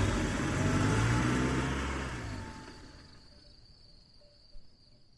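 The closing notes of a pop song: a low held chord fading out and dying to near silence about three seconds in. There is a brief faint click near the end.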